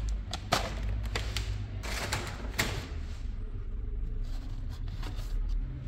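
Scattered clicks, knocks and rustling over a steady low rumble.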